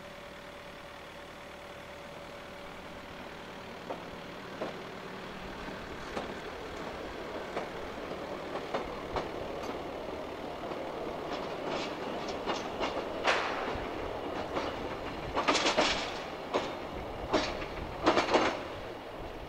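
Road-rail hydraulic excavator towing small flat rail trailers along the track: a rumble of wheels on rail that grows louder, with sharp clacks from the wheels over rail joints coming more often and loudest in the last few seconds.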